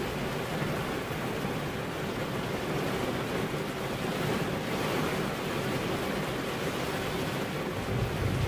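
Rain falling steadily as an even hiss, with a low rumble swelling near the end.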